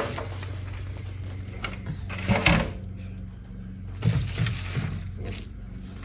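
Leafy greens being handled and dropped into a plastic colander in a stainless-steel sink: rustling leaves and a few sharp knocks and clatters, the loudest about two and a half seconds in, over a steady low hum.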